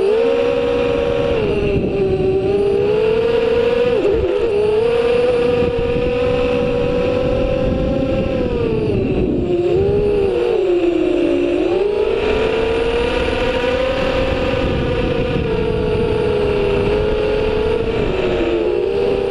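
FPV drone's electric motors and propellers whining steadily, the pitch dipping and rising again several times as the throttle changes, lowest about ten seconds in. Rushing air noise sits underneath.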